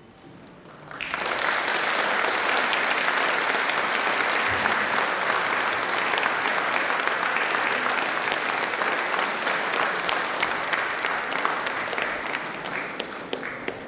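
Audience applauding, the clapping breaking out about a second in and thinning near the end into more separate claps.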